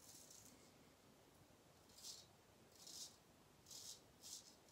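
Straight razor (a Gold Dollar) scraping through lathered stubble on the neck in short up-and-down strokes, five faint rasps, most of them in the second half.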